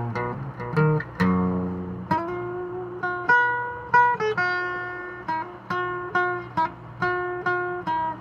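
Fender Starcaster acoustic guitar played fingerstyle. A few plucked chords give way, about two seconds in, to a slower line of single notes, each left to ring out.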